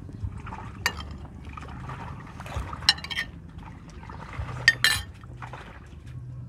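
Metal spoon clinking against china plates and bowls during a meal, about five sharp clinks, over a steady low hum.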